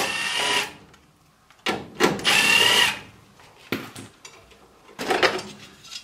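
Cordless drill-driver with a 1/4-inch nut driver running in two short spurts, backing out the screws of a furnace's igniter cover. A few clicks and a brief rattle follow about five seconds in.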